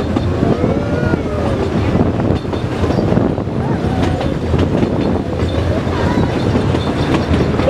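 Puffing Billy narrow-gauge train running along the line, heard from aboard a carriage: a steady, loud rumble of wheels on rails with scattered clicks.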